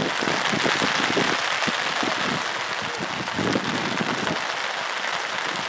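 Rain falling, a steady dense hiss, with uneven low rumbling underneath.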